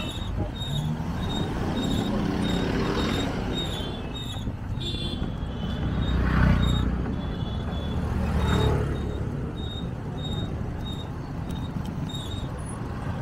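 Street traffic: a steady rumble of motor vehicles, with two vehicles passing close, swelling and fading about six and eight seconds in. A faint high-pitched beep repeats about twice a second throughout.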